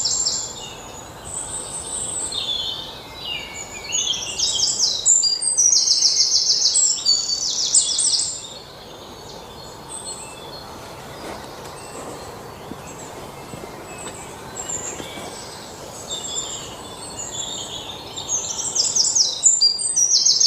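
Small birds calling in rapid, high-pitched trilled phrases over a faint steady background hiss. The calls are densest in the first half and again near the end, thinner in between.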